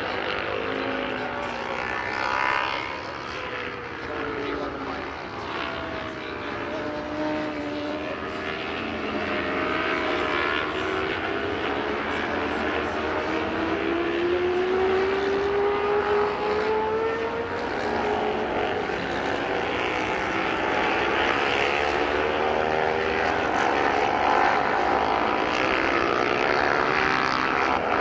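Classic racing motorcycles running hard around a road course, several engines at once, their pitch rising and falling as the bikes accelerate and pass. It grows louder in the second half.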